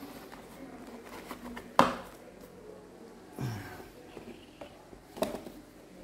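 Handling noise from a wristwatch in its box: a sharp click about two seconds in, another near the end, and small light clinks between.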